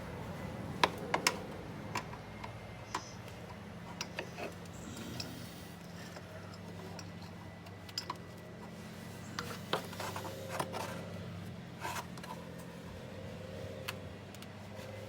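Scattered light metallic clicks and taps of a synthetic winch rope and its wire lead being worked into an aluminium ATV winch drum, a few sharper knocks about a second in and again near the middle, over a steady low hum.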